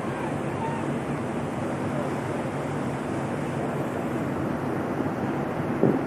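Steady rush of wind and churning water alongside a moving ferry, with wind buffeting the microphone.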